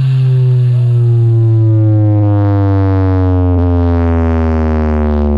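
A loud, deep bass tone played through a big sound system, sliding slowly and steadily down in pitch: a drawn-out bass sweep in electronic dance music.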